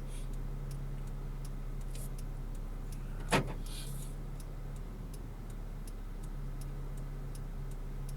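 Car cabin drone picked up by a 70mai Dashcam Pro's microphone, overlaid by faint, even ticking about three times a second: the dashcam's own ticking recording noise. One sharp click about three and a half seconds in.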